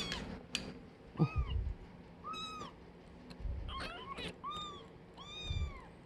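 Kittens mewing: a series of short, high-pitched mews about once a second, some in quick pairs, with a few soft low bumps in between.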